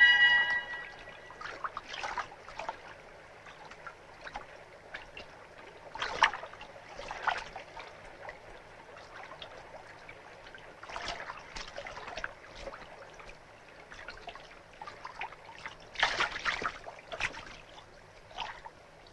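Water splashing and trickling in short, irregular bursts as a boat pole dips into and stirs the water. The strongest splashes come about six seconds in and again around sixteen seconds in.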